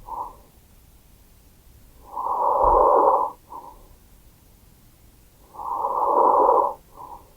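Normal vesicular breath sounds heard through a stethoscope over the lungs: a soft rush of air, about two breaths. Each has a longer, louder inhale and a short, faint exhale.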